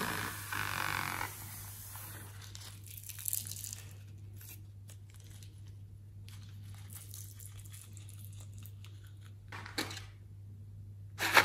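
Soft rustling and a few small clicks as a cut rubber balloon is handled and blue sequins drop from it onto slime, over a low steady hum.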